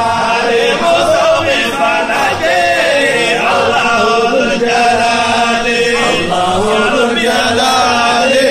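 A group of men chanting an Islamic devotional chant together in unison, continuous and loud, the melody rising and falling.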